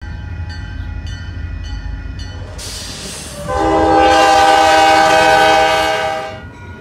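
Railroad crossing signal bell ringing about twice a second, then a diesel locomotive's air horn sounding one long blast, a chord of several steady tones lasting about three seconds, the loudest sound here, fading out near the end.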